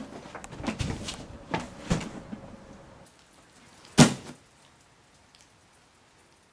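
A run of irregular knocks and bumps, then a single loud, sharp bang about four seconds in.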